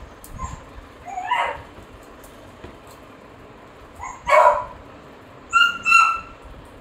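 Labrador retriever making short whining and yelping sounds: a brief rising-and-falling whine about a second in, a louder yelp a little after four seconds, and two short, high-pitched squeals just before six seconds.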